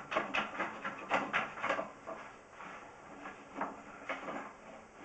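Irregular clicking and rattling from a sewer inspection camera's push cable being fed into the drain line, several clicks a second at first, then sparser.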